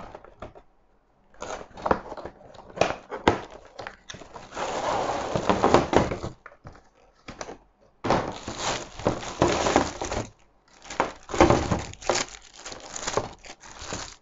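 Plastic packaging on a boxed ring light being handled and unwrapped: bursts of crinkling and rustling plastic mixed with clicks and knocks of cardboard and parts, with brief pauses between.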